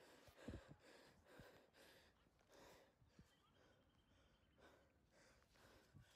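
Near silence with faint, close breathing and sighs from a person at the phone's microphone.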